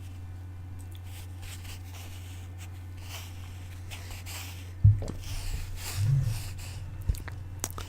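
Soft scratching and tapping on an object, with a sharp knock about five seconds in, a dull thump a second later and a few light clicks near the end, over a steady low hum.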